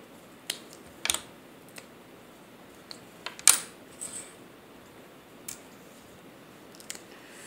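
Lego bricks being pulled apart and set down: scattered sharp plastic clicks and taps at irregular intervals, the loudest about three and a half seconds in.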